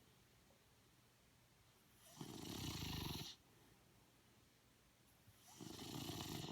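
Slow, even snoring: two long snores, each a little over a second, about three and a half seconds apart, with near quiet between them.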